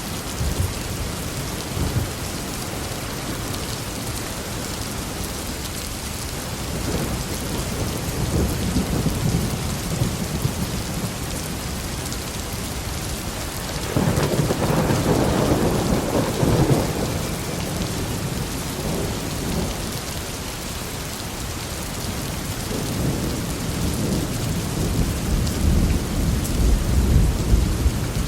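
Heavy rain pouring steadily, with rolls of thunder rumbling through it: a low swell about a quarter of the way in, a louder roll around the middle, and another building near the end.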